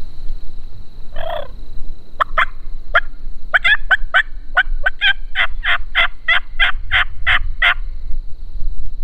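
Wild turkey calling: one short call about a second in, then a long run of nearly twenty sharp notes, about three a second, that come quicker and grow louder before stopping near the end.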